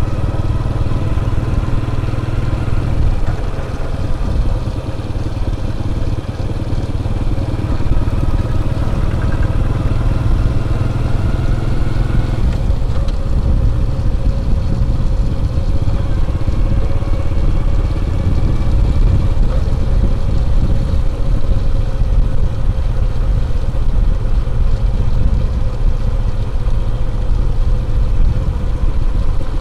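A vehicle engine running on the move, with a steady low rumble. Its pitch climbs slowly for a few seconds about eight seconds in, then drops back around twelve seconds.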